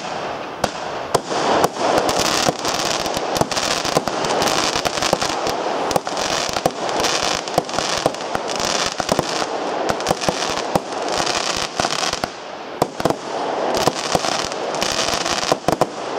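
Panda Feuerwerk 'Mushrooms' fireworks battery firing: an uneven, rapid string of launch thumps and sharp bursts, several a second, with hiss recurring between them.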